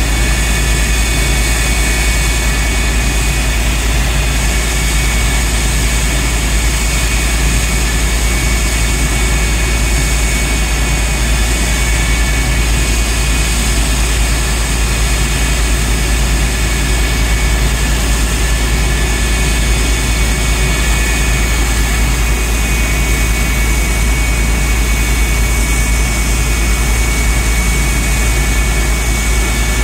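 Lockheed CF-104D Starfighter's J79 turbojet running steadily on a ground run, the aircraft standing still. A loud, even rush of jet noise with a heavy low rumble beneath and a steady high-pitched whine over it.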